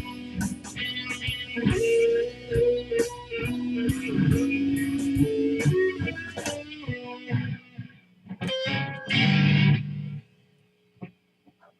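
Solo guitar playing the closing bars of a blues, picked notes ending in two loud strummed chords just before ten seconds in. After them the music stops, leaving a faint hum and a couple of small clicks.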